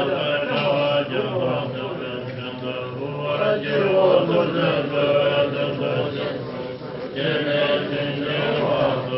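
Monks chanting a Tibetan Buddhist long-life prayer together, a recitation of several overlapping voices on a low, mostly steady pitch.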